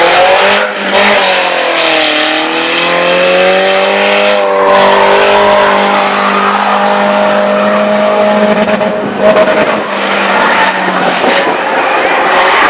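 Several race car engines running hard around an oval, their pitch dipping and then climbing again as the cars lift and accelerate through the laps.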